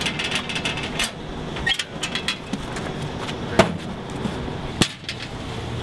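Combination lock on a metal school locker clicking as the dial is turned. Then a loud metallic clank about three and a half seconds in as the locker door comes open, and another knock a second later.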